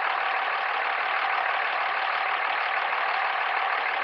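Dodge Ram's 5.9L Cummins diesel engine running steadily at idle, a constant engine noise with a steady whine through it.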